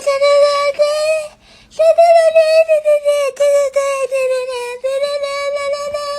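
A voice holding long, high-pitched notes with only slight wavering, breaking off briefly about a second and a half in before carrying on.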